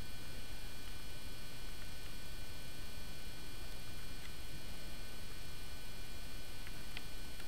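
Steady background hiss and low rumble with a few faint, constant high-pitched whine tones, typical of a small camera's own electronic and microphone noise. There are two faint clicks near the end.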